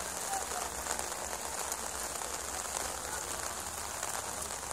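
Steady rain falling on wet ground.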